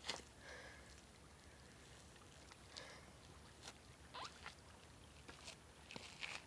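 Near silence, broken by a few faint, short clicks and rustles scattered through it.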